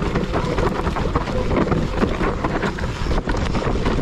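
Mountain bike descending a dirt trail at speed: wind buffeting the camera microphone, with the tyres on dirt and a steady run of small knocks and rattles from the bike over the bumps.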